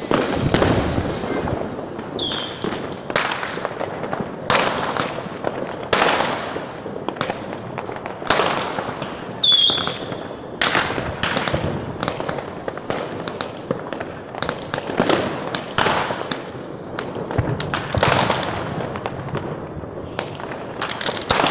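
New Year's fireworks and firecrackers going off: sharp bangs and pops at irregular intervals, some in quick clusters, with a few short high whistles among them.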